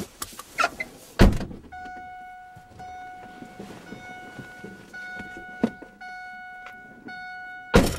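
Car door unlatching with a loud clunk about a second in, then the car's steady door-open warning tone, which stops as the door is slammed shut near the end.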